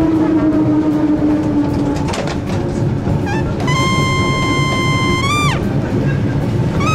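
Historic tram rolling along street track with a steady low rumble. Over it runs brass music: from about halfway, a long held note that bends up slightly and then falls away, with a second such note starting near the end.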